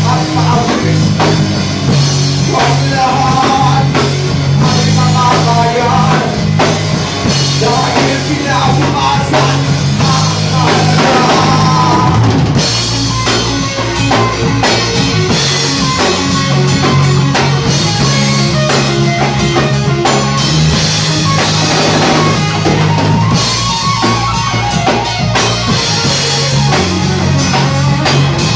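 Live rock band playing loud: a drum kit with cymbals, electric guitar and steady bass notes.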